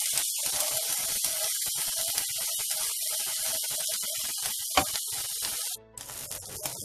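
Beaten egg sizzling in hot oil in a non-stick frying pan alongside broccoli, stirred with a spatula; a steady hiss that cuts off abruptly near the end, leaving only quieter spatula scrapes and clicks.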